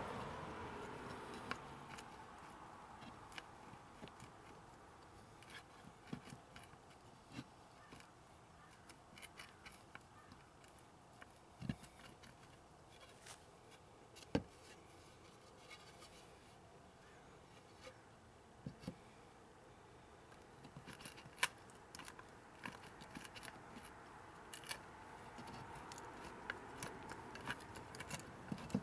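Faint, scattered small clicks and short scrapes of a Victorinox Farmer Swiss Army knife being handled and worked, metal tools clicking and rubbing.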